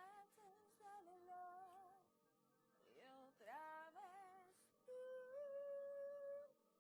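A woman singing quietly by herself in short, gliding phrases, ending with a long held note that stops a little before the end.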